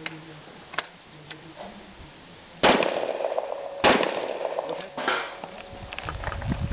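Two rifle shots about a second apart, then a lighter crack about a second later, with a faint ring from the struck steel targets lingering after them. A low rumble of wind on the microphone rises near the end.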